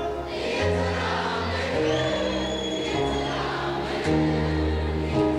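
Ethiopian Protestant worship music (mezmur) playing between the singer's lines: held chords over bass notes that change every second or two, with a choir-like wash of voices.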